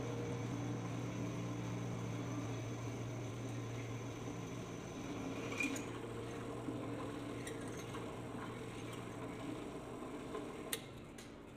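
Bench drill press with its repaired electric motor running, giving a steady hum while the bit is fed down into a workpiece in a vise; the hum eases about two seconds in, and a few sharp clicks come midway and near the end.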